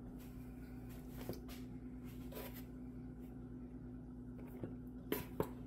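Flour being scooped with a cup and tipped into a bowl of bread dough: soft scraping and a few light knocks, the two sharpest about five seconds in, over a steady low hum.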